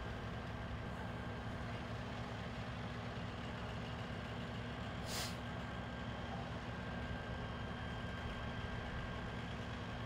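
Fire engines idling with a steady low drone and hum. A brief hiss cuts in about five seconds in.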